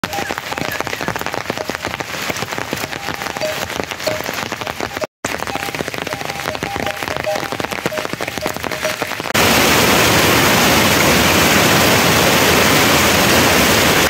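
Steady rain pattering on a plastic tarpaulin roof and wet vegetation, a dense run of separate drop hits with a brief dropout about five seconds in. About nine seconds in it switches abruptly to a louder, even rain hiss.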